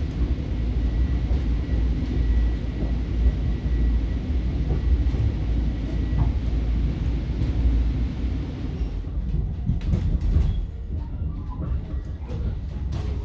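Long Island Rail Road commuter train heard from inside a moving passenger car: a steady low rumble of wheels on rails, with a faint high whine that fades about six seconds in and a few sharp clicks near the end.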